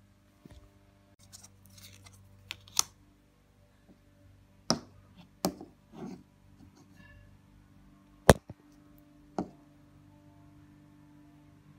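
Small plastic blind-box figurines being handled and set down on a wooden floor: a scatter of sharp clicks and knocks, about seven in all, the loudest about eight seconds in, over a faint steady hum.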